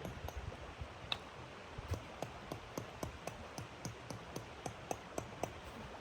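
Irregular crackling ticks, about three or four a second, over a steady low hiss.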